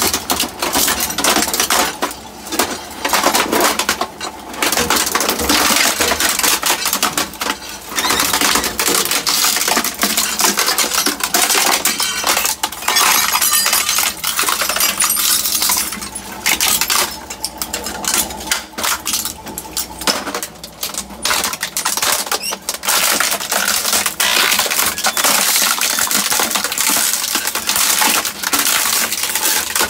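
Twin-shaft shredder's rotating steel cutter discs chewing through a plastic printer: a dense, continuous run of cracking, snapping plastic and clinking fragments, with a few brief lulls.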